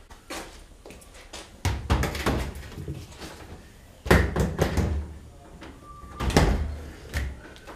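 Three bursts of knocks and clatter from hard objects being handled, like a cabinet door or panel being moved and set down, each lasting about a second.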